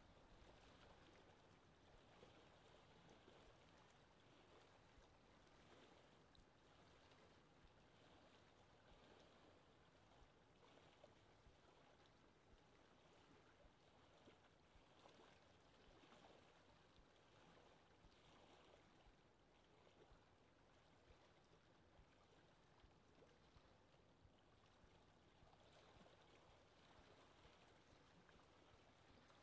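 Near silence: a faint steady hiss of background noise.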